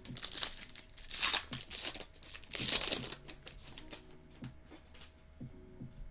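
Foil wrapper of a Bowman Chrome trading-card pack being torn open and crinkled, in three crackly bursts in the first three seconds, then a few soft clicks as the cards are handled.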